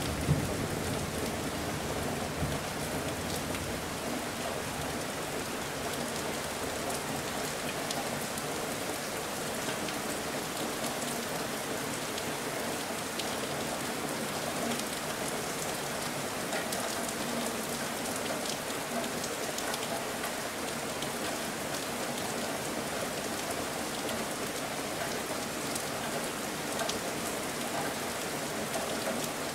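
Steady rain, an even hiss of drops, with the tail of a low thunder rumble dying away in the first second.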